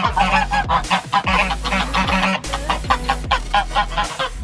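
Background pop music with a steady beat, with poultry clucking and calling over it.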